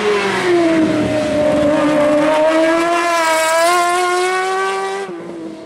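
Racing engine of a sports-prototype hillclimb car held at high revs under full throttle, its note climbing slowly as it accelerates uphill. The pitch drops abruptly and the sound fades about five seconds in.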